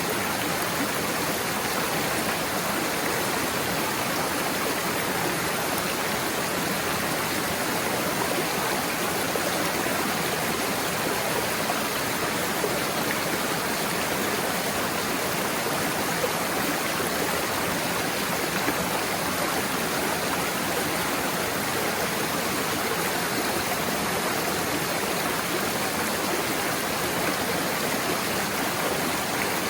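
Waterfall and stream water rushing and splashing in a steady, unbroken wash of noise.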